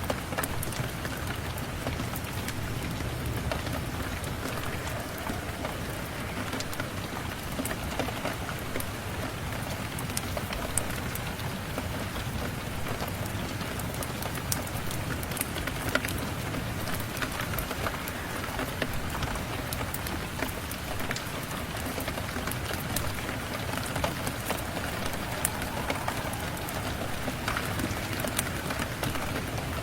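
Steady rain pattering, with many small sharp ticks and drips scattered through it.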